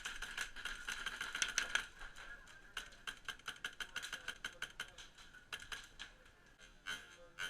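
Airsoft guns firing in rapid clicking volleys, densest in the first two seconds, then sparser single shots and pellet hits.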